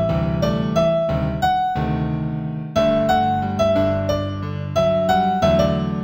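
Solo piano playing a gentle new-age piece in G major: a slow melody of single notes, about two a second, ringing over low bass notes.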